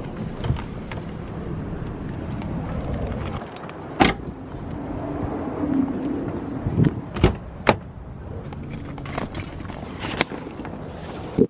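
Steady outdoor traffic noise with handling noise from a handheld camera: a sharp knock about four seconds in and a few lighter taps and clicks later.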